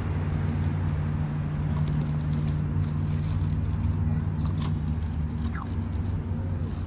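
Steady low motor hum with a few faint clicks.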